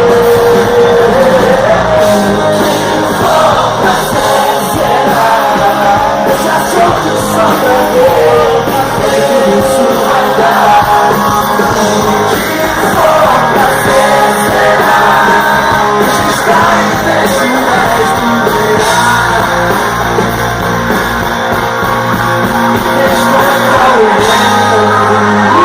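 Live rock band playing with singing over it.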